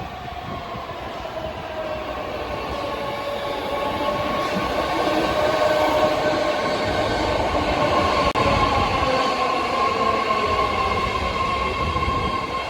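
A nine-car BART Fleet of the Future train pulling into an underground platform. Its rumble grows louder over the first few seconds and then holds, with several steady high whining tones running over it.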